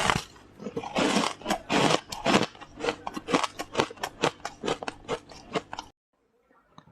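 Frost ice being bitten and chewed close to the microphone: a rapid run of crisp crunches that cuts off abruptly about six seconds in.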